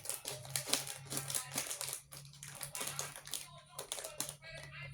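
Plastic snack packet crinkling and rustling in quick, irregular bursts as it is handled and torn open.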